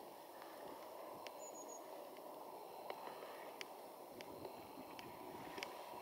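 Faint outdoor background: a steady low rush, with a few short sharp ticks scattered through and one brief high thin note about a second and a half in.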